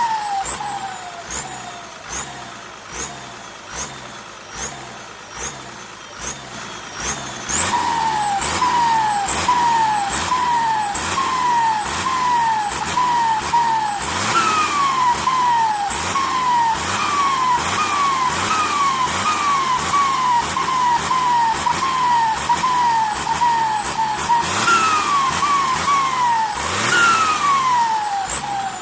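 Diesel engine with a Kobelco SK200-3 turbocharger, the turbo singing in short falling whistles over the engine's beat. The whistles are faint at first, then louder and repeated about one and a half times a second from about eight seconds in. Longer rising-then-falling whistles come a few times.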